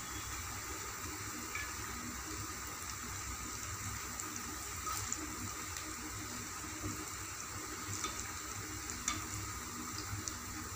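Chayote pakoda fritters deep-frying in hot oil in a kadai, a steady sizzle and bubbling, with a few brief ticks now and then in the second half.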